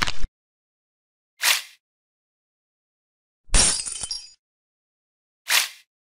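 A "crack" sound effect: a sharp cracking, breaking sound about three and a half seconds in, lasting under a second. It is preceded by a short burst at the start and a brief hiss about a second and a half in, and followed by another brief hiss near the end.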